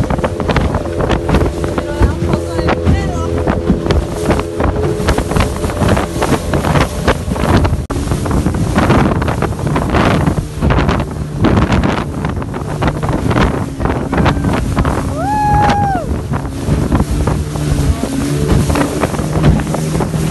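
Outboard motor of a small fiberglass boat running at speed, the hull slapping through choppy water with spray and wind buffeting the microphone. About two-thirds of the way through the engine note drops lower.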